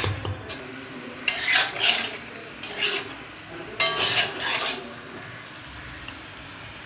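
A spatula scraping and stirring chunks of pork in an iron wok, in three strokes, after a last clink or two of a pestle in a small steel cup at the start.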